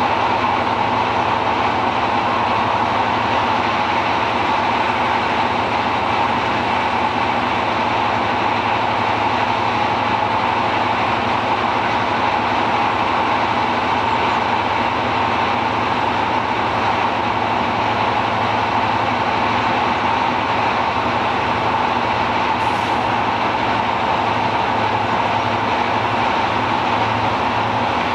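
Heritage diesel train engines running steadily, holding an even pitch and level throughout.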